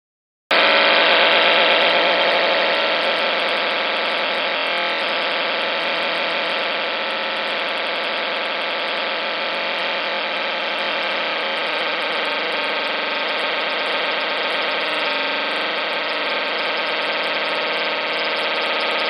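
After a moment of silence, a harsh noise wall starts abruptly: a dense, steady mass of distorted, buzzing electronic noise that barely changes.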